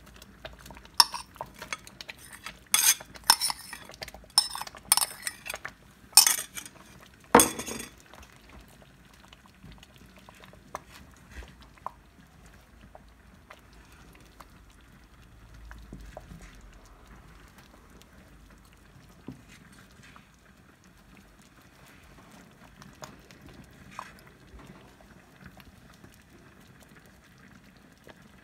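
A spoon scraping and clinking against a glass bowl as khoya is knocked out into the pot: a quick run of sharp clinks over the first eight seconds. After that the pot of milk, rice and carrot simmers faintly, with an occasional light tap of a wooden spoon.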